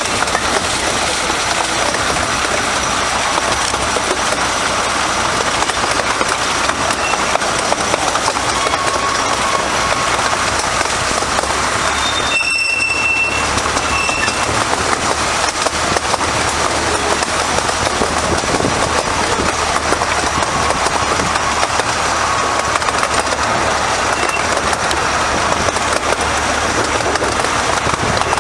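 Steady running noise of a minimum-gauge passenger train heard from inside a coach: wheels rumbling and rattling over the rails. Halfway through comes a short high squeal, typical of wheel flanges on the curve.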